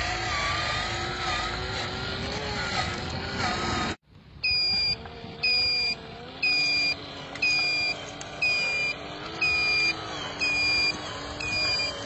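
Scale RC dump truck's sound module: a simulated truck engine running, its note rising and falling slightly. About four seconds in, the sound cuts out, then a reversing beeper sounds about once a second, eight times, over the engine, as the truck backs up.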